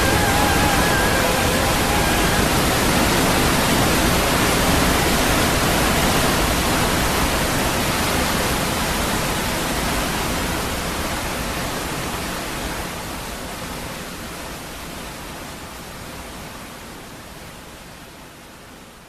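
A steady, even rushing noise, like water or hiss, that fades out gradually, with the last held music notes dying away in the first couple of seconds.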